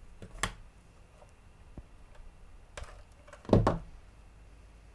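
Handling clicks and knocks of spring-loaded wire strippers working a short length of hookup wire: a sharp click about half a second in, a few faint ticks near three seconds, and the loudest, a double knock, about three and a half seconds in.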